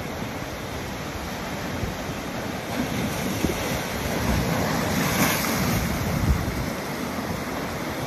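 Rough sea waves breaking and washing over a rocky shore, with gusty wind buffeting the microphone. One wave surges louder through the middle, peaking about five to six seconds in.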